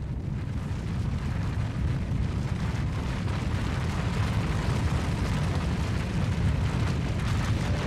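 Snow avalanche rumbling: a steady, deep rumble of snow cascading down a mountainside, growing slightly louder about a second in.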